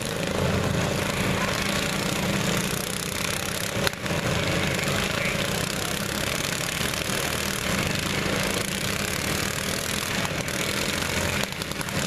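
Several riding lawn mower engines running together steadily during a demolition derby, with one sharp knock about four seconds in.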